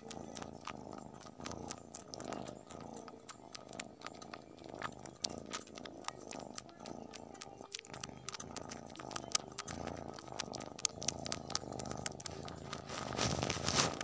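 Kitten purring while licking cloth, with many small sharp clicks from its tongue and mouth over the steady purr; a little louder near the end.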